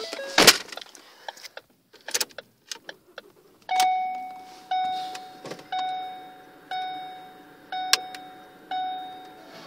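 A car door shuts with a thump, followed by small clicks and jingling of keys, then the 2012 Ford Focus's dashboard warning chime sounds about once a second, each chime fading away.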